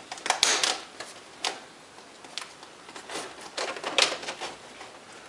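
Plastic retaining clips of an HP Envy M6 laptop's screen bezel snapping loose as the trim is pried off: a string of sharp, irregular clicks, coming thicker about three to four seconds in.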